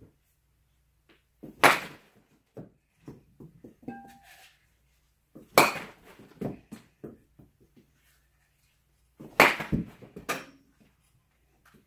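Three sharp bat-on-ball hits about four seconds apart from a Louisville Slugger Select 718 USA youth bat, each followed by softer knocks of the ball striking the net and dropping to the floor.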